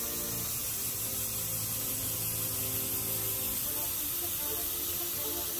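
Airbrush spraying leather dye, a steady hiss.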